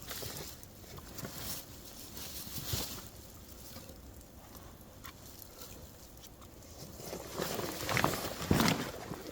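Irregular rustling and scuffing of fabric and gear being handled, growing louder and busier near the end.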